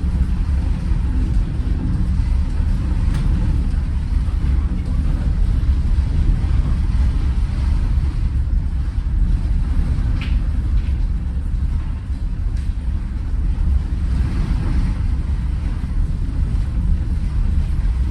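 Steady low rumble on board a passenger ferry underway, with faint scattered higher sounds and a brief brighter sound about ten seconds in.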